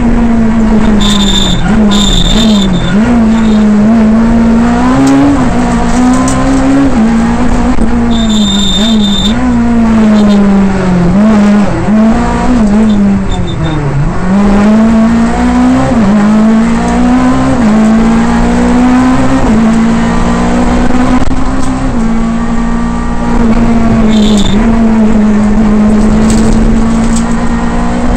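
Škoda Fabia Kit Car rally car's engine heard from inside the cockpit, revving up and falling back again and again through gear changes at full stage pace. The note drops lowest about halfway through as the car slows for a tight turn, and a few brief high squeals cut in, near the start, about a third of the way in and near the end.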